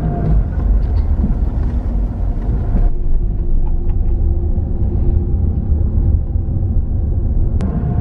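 A vehicle driving at highway speed, heard from inside the cabin: a steady, low engine and tyre rumble.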